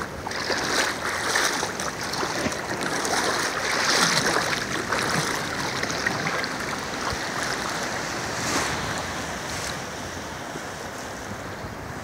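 Shallow, calm seawater sloshing and lapping as someone wades out through it, in uneven swells that ease off toward the end.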